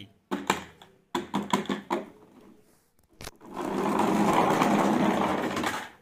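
Plastic toy dump truck handled and rolled on a ridged board: scattered clattering, then about two seconds of steady, rapid rattling from its wheels and body that stops suddenly near the end.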